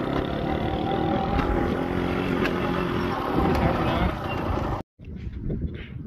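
Tractor-driven wheat threshing machine running at full work, a steady dense mechanical noise with a constant engine hum under it. It cuts off abruptly near the end.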